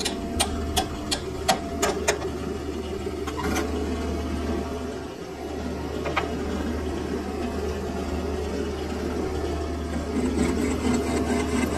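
Hammer tapping a silage-machine gearbox shaft clamped in a lathe's three-jaw chuck to true it: a quick run of sharp knocks in the first two seconds, two more later, over the hum of the lathe motor. The lathe then runs steadily, spinning the chuck, and a rougher scraping joins near the end.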